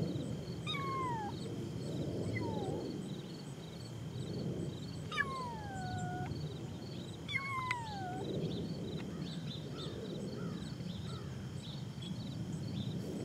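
Bengal kittens meowing: four high mews that each slide down in pitch, the third one longer, drawn out for about a second.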